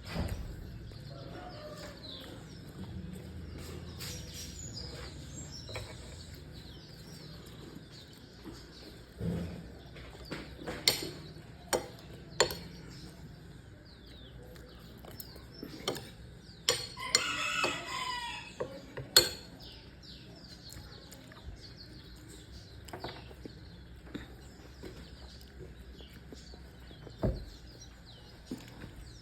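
Chickens clucking, among scattered sharp clicks and knocks.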